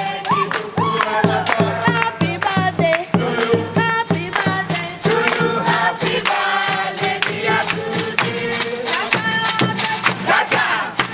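Music with a steady beat and singing voices.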